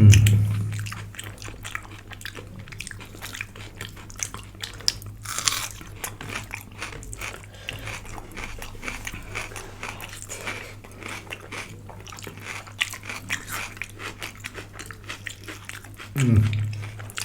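A person chewing food close to the microphone, with irregular crunchy bites and mouth clicks throughout.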